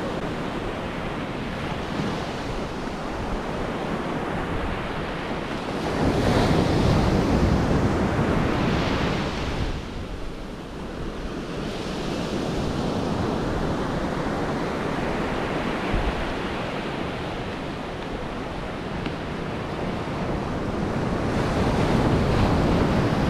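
Ocean surf breaking on the beach, with wind buffeting the microphone. The waves swell louder twice: about a quarter of the way in and again near the end.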